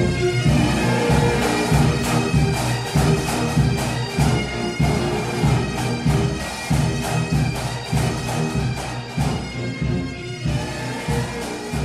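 Bagpipes playing a tune over their steady drones, with a regular beat, growing gradually quieter toward the end.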